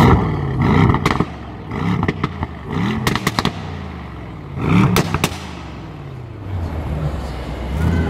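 Mercedes-AMG S-Class Coupé's twin-turbo V8 exhaust, blipped hard about five times in the first five seconds. Each blip falls back with sharp crackles and pops from the exhaust, and the engine then settles back to idle.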